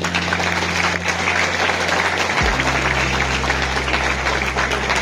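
Audience applauding steadily, with steady low music notes underneath that change pitch about halfway through.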